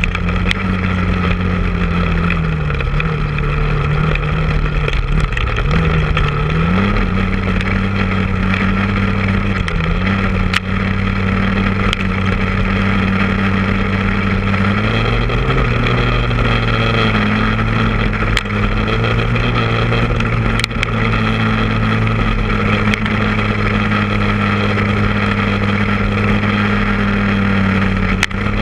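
Honda ATV engine running while riding, its pitch dipping a few times as the throttle eases, then climbing about halfway through and holding steady. A few short sharp knocks sound over it.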